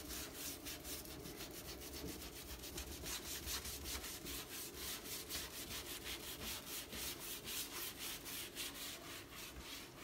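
Hand scrubbing brush worked over the wet, weathered macrocarpa wood of a bench backrest in quick back-and-forth strokes, several a second, a steady rubbing scrape as the grime is worked out of the grain.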